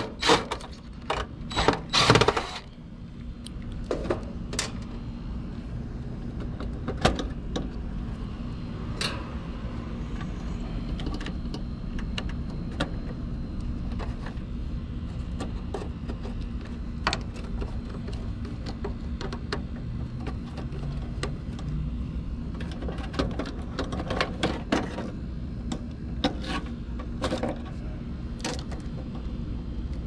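A DeWalt 20V cordless impact driver runs in a few short bursts over the first two seconds or so, working a screw on an HVAC contactor. After that, scattered light clicks and taps of a screwdriver and wire terminals on the contactor come over a steady low hum.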